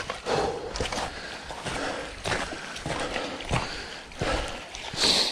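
Irregular rustling and crunching of footsteps and bodies pushing through brush and leaf litter, with a stronger brushing sound near the end.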